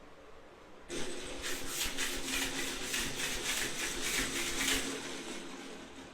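Small 3D-printed single-acting air engine running on air from a balloon pump. It starts about a second in with a hiss and rapid puffing, about four puffs a second over a low hum, then fades out near the end.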